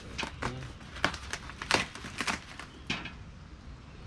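Packing material rustling and crinkling in a cardboard shipping box as hands work inside it, in irregular short bursts.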